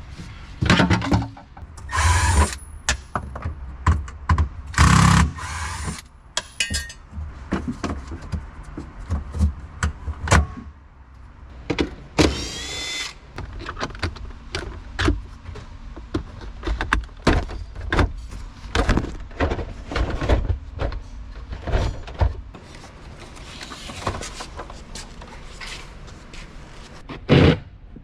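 Irregular clicks, knocks and rattles of hands and tools working on car interior parts and fittings, with a few longer bursts of noise about 2, 5 and 12 seconds in.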